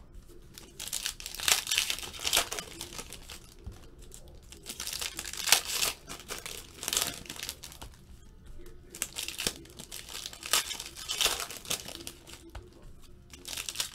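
Plastic wrappers of trading-card packs crinkling and tearing as the packs are ripped open by hand, in irregular bursts.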